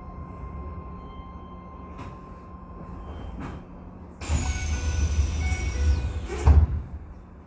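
Keisei 3000-series commuter train standing at a station, its sliding passenger doors working: a sudden loud rush of noise with a falling high whistle starts about four seconds in and ends in a sharp thud as the doors reach their stop, over the low rumble of the stopped train.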